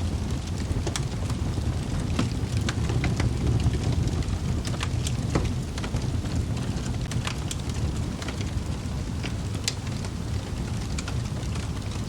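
Wood fire burning in a fireplace: a steady low rumble of flames with irregular sharp crackles and pops of the logs.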